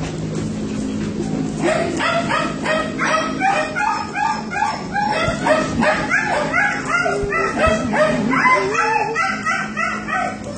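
Dogs whining and yipping in quick, short, rising cries, several a second, starting about two seconds in.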